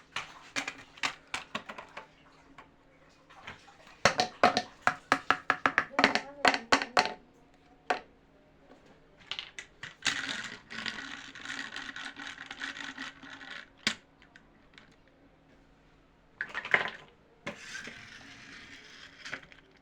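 Hands handling and opening a package: a quick run of sharp clicks and taps, then two stretches of rustling or tearing packaging.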